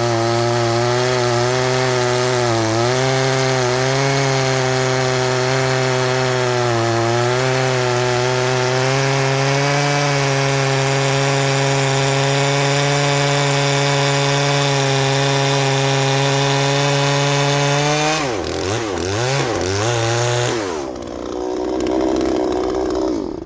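Two-stroke chainsaw running at high revs under load as it cuts through hardwood, its pitch dipping briefly a few times. About 18 seconds in, the revs swing up and down, drop near the end, and the saw stops.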